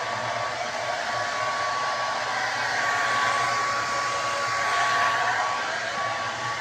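Conair 1875 hand-held hair dryer running steadily, an even rush of blown air with a thin steady whine over it, swelling a little now and then as it is moved through the hair.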